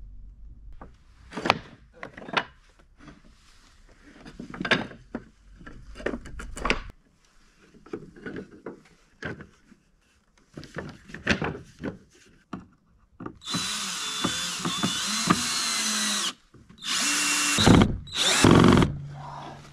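Knocks and clatter of wooden boards being handled, then a power drill driving screws into hard old wood: one run of about three seconds, followed by two shorter bursts near the end.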